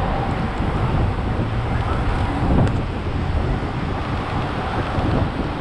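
Wind rushing over the microphone of a camera on a moving bicycle, over a steady low rumble of road and traffic, with one brief knock about halfway through.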